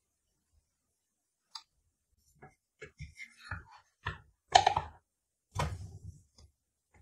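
Wooden spatula scraping and knocking against a nonstick frying pan while a pancake is lifted, flipped and pressed down: a series of short clicks and scrapes, the loudest knock about four and a half seconds in.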